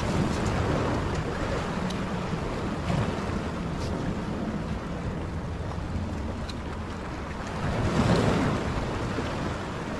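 Sea surf washing on the shore, with wind rumbling on the microphone; a wave swells louder about eight seconds in.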